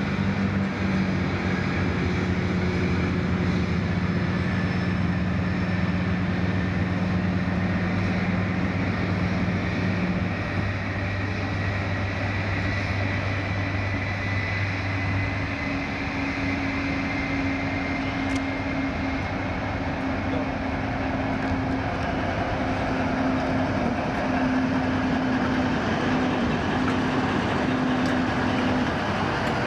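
A British Rail Class 60 diesel freight locomotive hauling loaded stone wagons passes slowly, with a steady engine hum and the running noise of the train. The engine note shifts to a higher tone about halfway through as the locomotive draws alongside.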